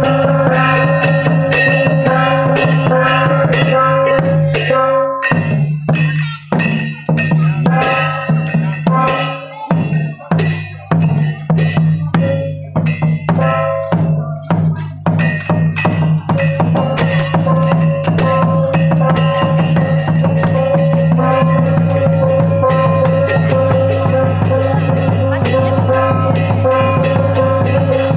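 Red Dao ceremonial percussion playing for the cấp sắc dance: a barrel drum and ringing metal percussion struck in a driving rhythm over a steady ringing tone. About five seconds in, the playing thins to separate, spaced strikes for roughly ten seconds, then fills back in.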